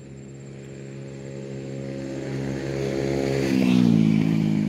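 A motor vehicle engine approaching and passing by, growing louder for about four seconds and dropping in pitch as it goes past near the end.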